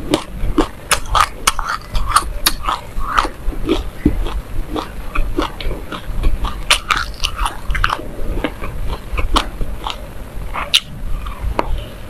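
A mouthful of black and white sesame seeds being bitten off a seed-coated ball and chewed, a dense, irregular run of small sharp crunches and crackles.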